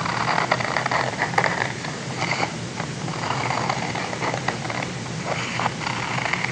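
Scissors cutting through paper in a run of short, irregular snips with paper rustling, over a steady low hum.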